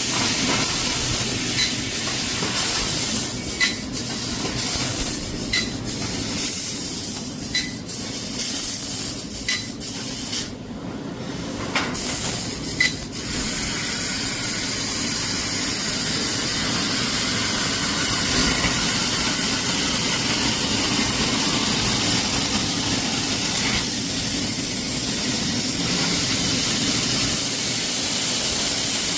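CNC laser cutter cutting 6 mm plate, its assist gas hissing steadily from the cutting head. For the first half there are short ticks about every two seconds. The hiss briefly cuts out about ten seconds in, then runs steady.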